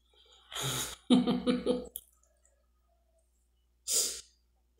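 A woman with a mouthful of food makes a quick breath, then a quick run of about four short voiced sounds through closed lips, and near the end another sharp breath through the nose.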